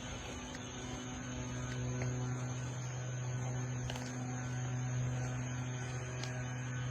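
A steady low hum that cuts off abruptly at the very end.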